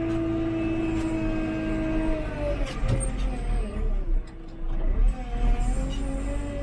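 JCB 3CX backhoe loader's diesel engine and hydraulics running under load, heard from inside the cab. A steady low rumble with a held whine; about two and a half seconds in the pitch sags and wavers, briefly dropping in level, then picks back up.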